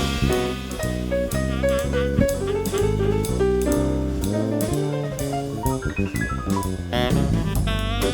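Background music: upbeat jazz with saxophone and drum kit, a steady beat.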